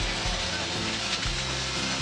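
Background music with a bass line that moves in short steps.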